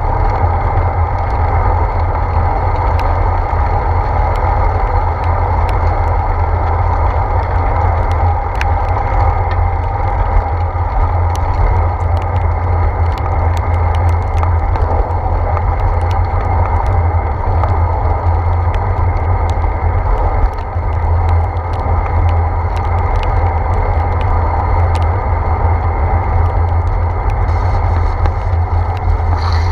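Steady wind rumble and road noise of a bicycle ridden on a wet road, heard through a handlebar-mounted GoPro Hero 4, with scattered light ticks.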